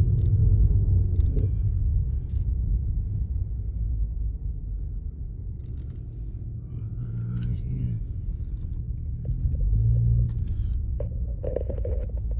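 Mercedes-AMG GT53's turbocharged inline-six engine and exhaust rumbling at low driving speed, heard from inside the cabin. The rumble eases off in the middle and swells again about ten seconds in.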